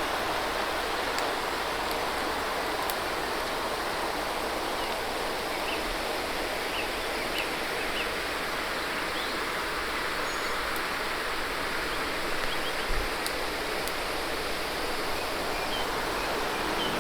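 Running water from a stream: a steady, even rush, with a few faint high chirps scattered through it.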